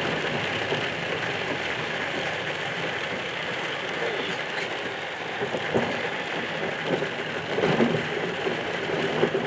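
Rain on the car and tyres running over a wet, mud- and rock-strewn road, heard from inside the moving car as a steady rush, with a few louder thumps in the second half.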